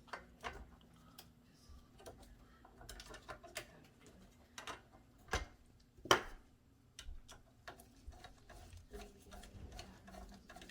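Light, irregular clicking and ticking of hand work on an oven door handle: screws being turned into the handle brackets by hand. Two sharper clicks come just past the middle.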